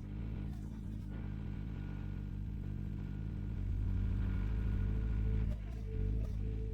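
Excavator's diesel engine running steadily, getting louder about four seconds in and easing back down shortly before the end.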